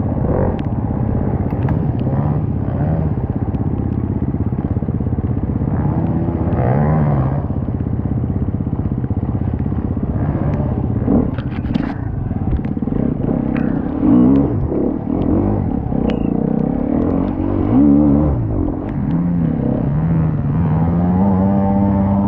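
TM 300 enduro dirt bike engine running hard under throttle, with repeated rev rises and drops, a few sharper rises about two-thirds of the way through, and climbing revs near the end. A few brief clattering knocks come in about halfway.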